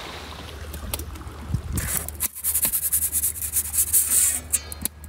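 Metal pizza peel scraping into the mouth of an Ooni Karu 12 portable pizza oven as a pizza is slid onto the baking stone. A rough rasping scrape with small knocks runs for a couple of seconds, starting about two seconds in.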